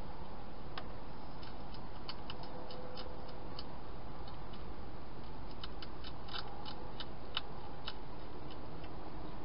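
European hedgehog chewing dry food inside a plastic feeding box: irregular sharp crunching clicks that come in two clusters, over a steady hiss.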